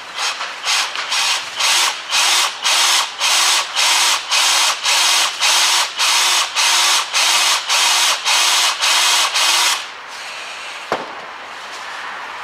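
Power drill with a 5 mm bit boring into a broken bolt in a hub knuckle. It runs in short, even bursts, about two a second, with the motor spinning up and down each time, and stops about ten seconds in. A single knock follows.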